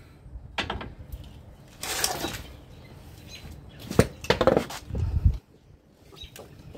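Handling noises from an old front strut assembly with its coil spring and hand tools on concrete: a short click, a scraping rustle, then a sharp metal knock about four seconds in, followed by clatter and a low thud.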